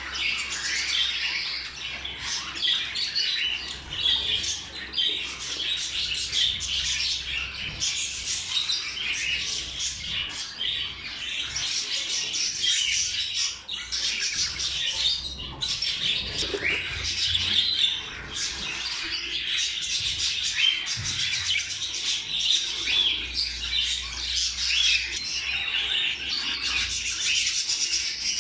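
Budgerigars chattering: a dense, continuous run of quick chirps and squawks.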